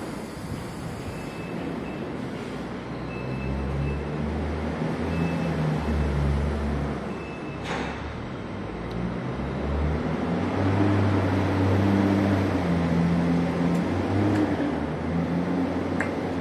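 A large engine running, its low hum shifting in pitch and growing louder past the middle, over a steady hiss, with one sharp short hiss or click about eight seconds in.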